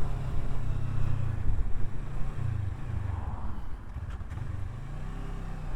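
Kawasaki Versys 650's parallel-twin engine running while being ridden, its low note shifting in pitch and easing off past the middle, under a steady rush of road and wind noise.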